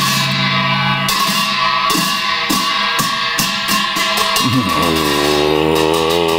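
Intro music: a series of sharp percussion strikes that come faster and faster over a held tone, giving way near the end to a low chanting voice over a steady drone.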